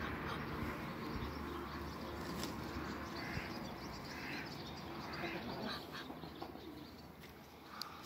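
Ducks calling: about five short calls at irregular intervals from about three seconds in, over a low rumble that fades after the first three seconds.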